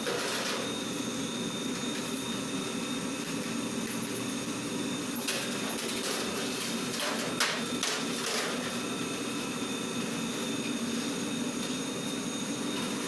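Dough moulding machine for baguettes running with a steady mechanical hum, its rollers sheeting and rolling dough pieces into baguettes. A few sharp knocks come through about halfway.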